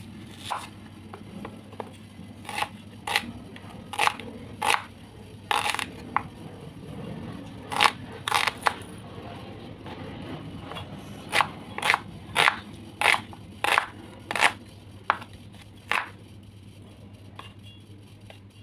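Kitchen knife slicing an onion on a cutting board: a series of sharp, crisp cuts, irregular at first, then an even run of about two cuts a second.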